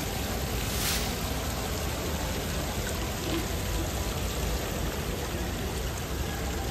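Steady background noise of a large, busy exhibition hall, an even wash with no clear single source, with a brief swish about a second in.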